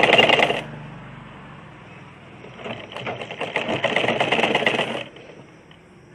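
Sewing machine stitching cloth in two runs with a fast, even rattle of stitches: the first stops about half a second in, the second runs from about two and a half to five seconds in.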